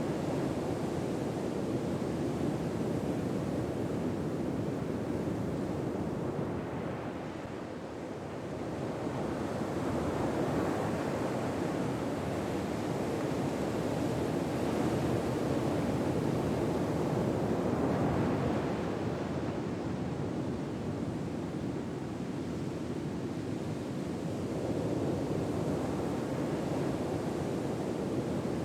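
Ocean waves breaking and washing ashore, a steady surf that swells and falls back slowly, every ten to fifteen seconds.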